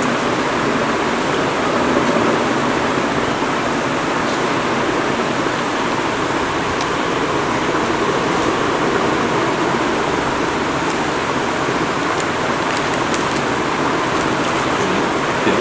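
Steady, even rushing noise with no let-up, and a few faint crackles near the end.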